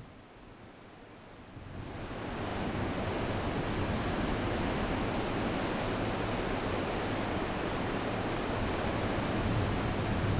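Heavy typhoon surf: breaking waves rush in about two seconds in and then run on loud and steady.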